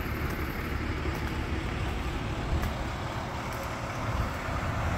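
Steady outdoor background noise with a low rumble, like distant road traffic, and a few faint clicks.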